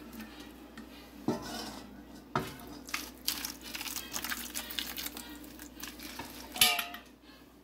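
Kitchen handling sounds: scattered light knocks and clinks of cookware and a foil baking pan being moved about, with a louder clunk near the end.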